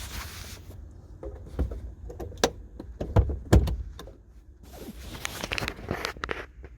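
Honda S2000 power soft top being closed, its electric top motor running while the fabric top is pushed down by hand, with fabric rustling and a run of knocks and clicks; two loud thumps come about three seconds in. The top does not yet close by itself: the new Robbins fabric has not stretched enough.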